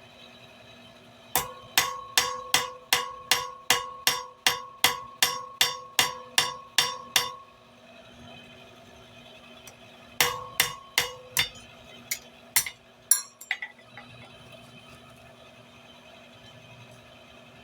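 Hand hammer striking hot bar stock on an anvil, the anvil ringing with each blow: a run of about sixteen evenly paced blows, about three a second, then after a pause about six more and a few lighter, uneven taps.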